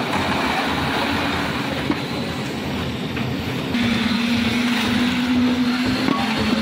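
Concrete mixer machine's engine running steadily, with a steady hum that gets louder a little past halfway.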